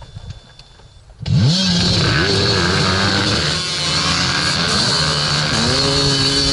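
Dirt bike engines at a race start: a low idle, then about a second in the engine is opened up hard and revs climb sharply as the bikes launch. The revs then drop and climb again several times as the rider shifts up through the gears, with other bikes running close by.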